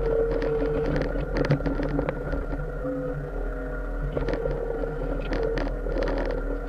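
Mini excavator running as it digs, a whine rising in and dropping out several times as the hydraulics are worked, with scattered knocks and scrapes of the bucket in the soil.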